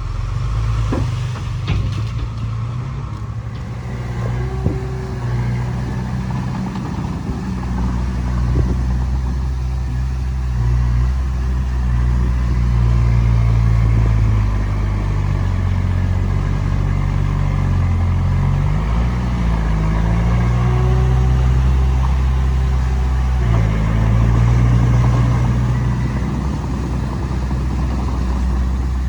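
Heavy diesel engine working steadily, its pitch rising and falling as the load changes, with a few sharp knocks in the first five seconds.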